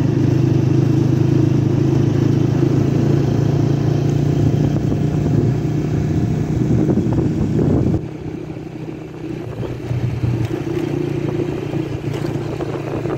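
Motorcycle engine running steadily while being ridden, heard from the rider's position. About eight seconds in, the throttle eases off and the engine sound drops suddenly to a quieter, steady level.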